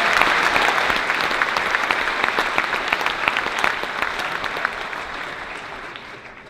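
Large audience applauding in a hall, the clapping thinning and dying away over the few seconds.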